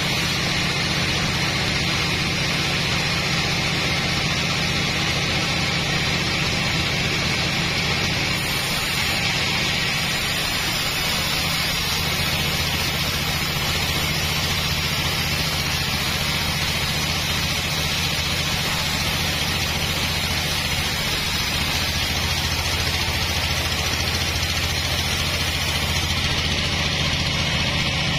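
Stationary diesel engine running steadily under power, driving the sawmill through its flywheel pulley and V-belts.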